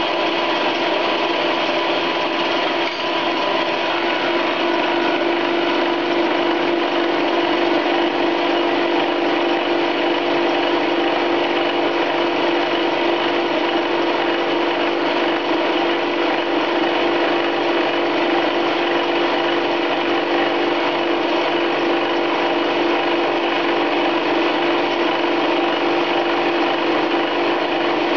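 Chinese 10 x 18 metal lathe running at 1400 RPM, its homemade two-tipped indexable carbide fly cutter milling hard steel held in a vertical milling slide. The machining noise is loud and steady, with a strong hum.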